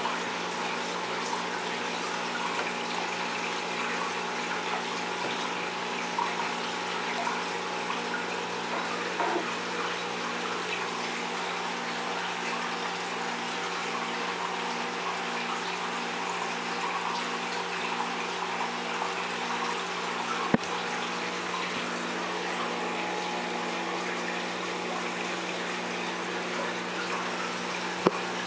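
Steady rush and trickle of aquarium water circulating, from the filter return and pump, over a low steady hum. Two sharp clicks, one about two-thirds of the way in and one near the end.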